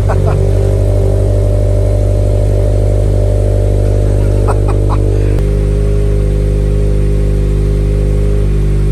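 Toyota GT86's flat-four boxer engine idling steadily just after being started. Its tone shifts slightly about five seconds in.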